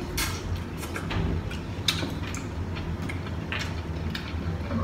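Eating sounds of shrimp from a seafood boil: chewing and mouth smacks, with scattered sharp clicks at irregular moments, over a steady low hum.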